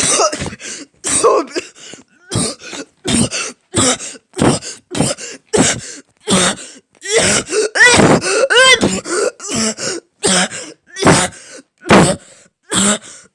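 A man in a long coughing fit: about twenty harsh coughs and throat-clearing hacks in a row, roughly two a second. Around the middle a few of the coughs turn voiced and strained.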